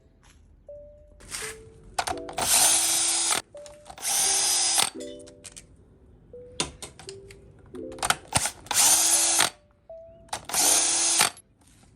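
Power tool run in four short bursts of about a second each, spinning out bolts during an engine teardown. Background music plays between the bursts.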